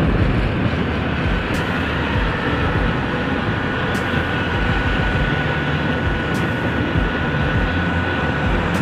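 Steady wind and road noise of a motor scooter ride in traffic, heard through a helmet-mounted microphone, with engine rumble underneath. The rider warns that some wind noise may get in through a visor gap left by the mic cable. A faint steady whine joins about a second and a half in.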